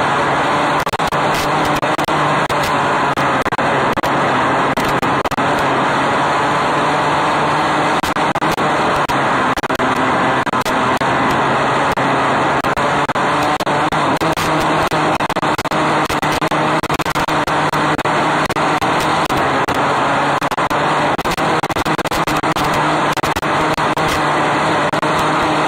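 270 micro sprint car's engine at racing speed, heard on board: a loud, steady, continuous engine note under heavy noise, with frequent short crackles.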